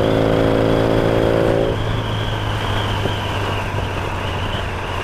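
Yamaha XS650 parallel-twin engine running while the motorcycle is ridden, heard from a helmet camera, with a steady note. About two seconds in, the even note gives way to a rougher, noisier sound.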